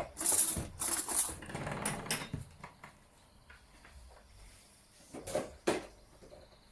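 Kitchen containers and a bowl being handled on a counter: a couple of seconds of clatter and light knocks, then two sharp knocks a little after five seconds in as things are set down.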